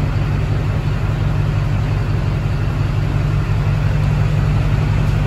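Car engine idling, a steady low rumble that holds even throughout.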